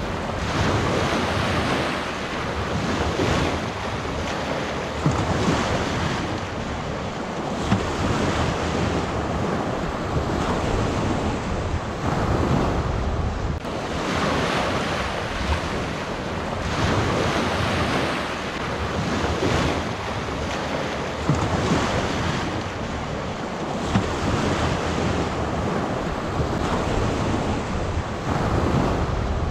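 Waves washing onto a shore, the surf swelling and easing every few seconds, with wind buffeting the microphone.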